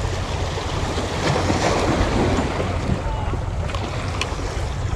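Small sea waves washing against shoreline rocks, with wind buffeting the microphone in a steady low rumble; a few faint clicks near the end.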